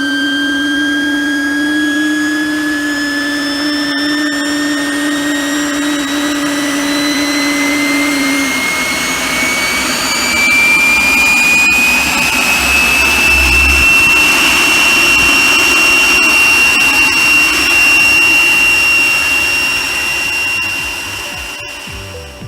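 Helicopter engine spooling up: a high whine rising slowly in pitch for about fifteen seconds and then holding steady, over a rushing noise. A lower steady hum drops out about eight seconds in, and the sound fades near the end.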